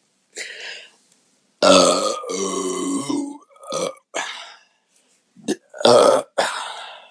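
A woman burping after chugging a carbonated seltzer: a long, loud burp starts about a second and a half in and lasts nearly two seconds, then a second, shorter one comes near the end.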